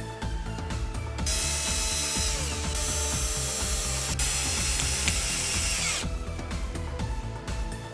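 KEAYANG DD-962 cordless driver drill's motor running steadily for about five seconds, starting about a second in and stopping near the end, over background music with a steady beat.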